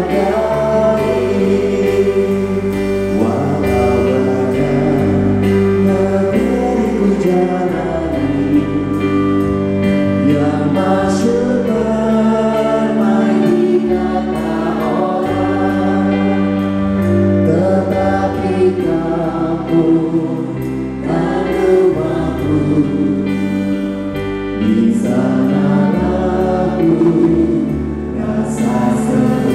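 Pop-jazz band music with several voices singing together over sustained bass notes.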